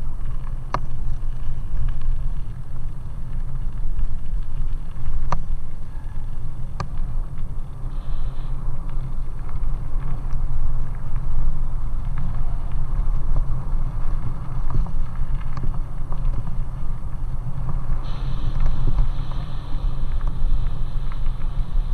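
Bicycle rolling over a gravel track, with steady low wind rumble on a helmet-mounted camera's microphone and tyre noise, and a few sharp clicks in the first several seconds.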